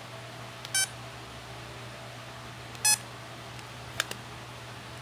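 Two short electronic beeps from an LG mobile phone, about two seconds apart, followed by two faint clicks near the end, over a steady low hum.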